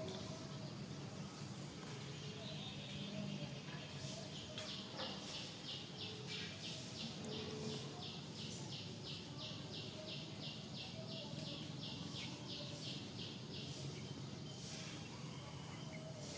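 Outdoor ambience with a steady low background hum. From about four seconds in, a high, evenly repeated chirping runs at about three to four pulses a second and stops a few seconds before the end.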